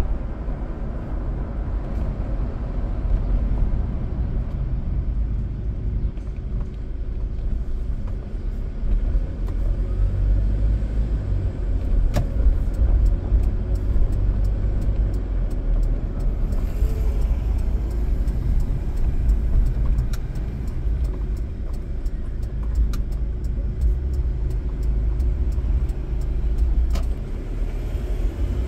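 Car driving on city roads: a steady low rumble of engine and tyres on the road surface.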